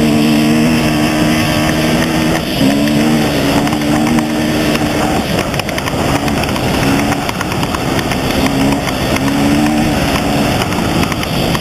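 Off-road vehicle engine running under throttle on a dirt road, over a loud rush of wind and road noise. The engine note dips briefly about two and a half seconds in, goes ragged and uneven midway, then steadies again near the end.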